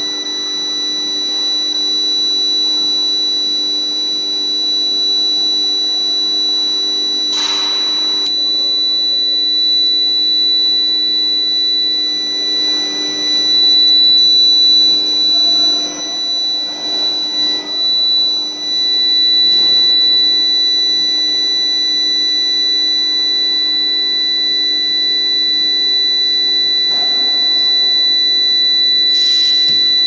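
Induction hardening line for steel plate running: a loud, steady, high-pitched whine with fainter tones above and below it, over a lower steady hum. The whine comes from the induction heating coils and their medium-frequency power supply while the plates are being heated. Short hisses break in about seven seconds in and again near the end.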